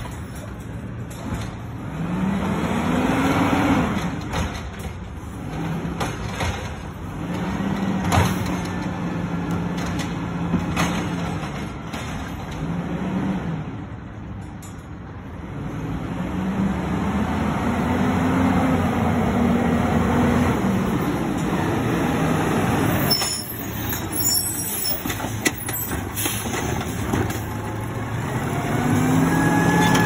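Diesel engine of an automated side-loading garbage truck revving up and back down several times as it moves along the curb and works its lifting arm, with a sharp knock about eight seconds in and some clanks later on.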